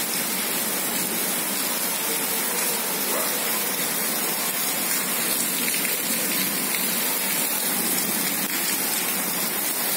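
Heavy rain falling steadily outside: an even, continuous hiss of a downpour on the ground and surfaces.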